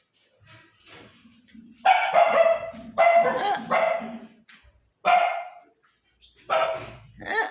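A dog barking repeatedly: loud, short barks in quick groups with brief pauses between them.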